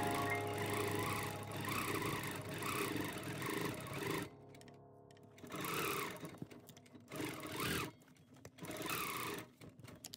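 King Quilter II Elite longarm quilting machine stitching through a quilt, running steadily for about four seconds, then stopping and restarting in several short runs.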